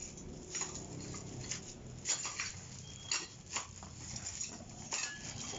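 Irregular light clicks and taps of small metal bicycle parts being handled: bolts being set by hand into a disc brake rotor on a wheel hub.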